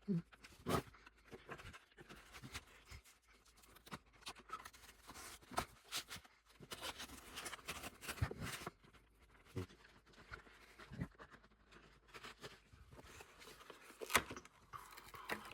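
Scattered light clicks, taps and soft rustles of hands opening a plastic card package and handling trading cards and sleeves.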